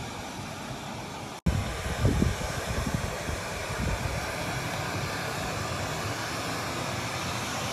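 Steady rushing background noise outdoors, with a brief cut-out about a second and a half in, followed by several low bumps on the microphone.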